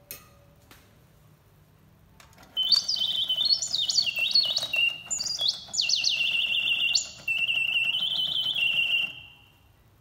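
Reuge two-bird singing cage automaton: a click as its start knob is pressed, then about two seconds later its bellows-and-whistle mechanism plays a loud whistled bird song of fast trills and rising and falling glides in short phrases, with the works whirring faintly underneath. The song fades out about a second before the end.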